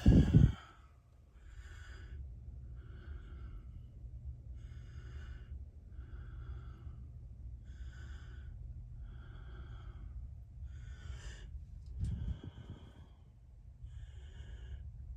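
Steady, rhythmic breathing close to the microphone, about one breath every second and a half, over a steady low hum. There is a knock at the start and another about twelve seconds in.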